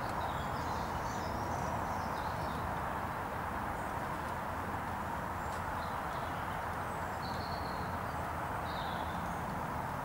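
Steady background noise with faint, high, twittering calls of small songbirds a few times: near the start, and again around two-thirds and near the end.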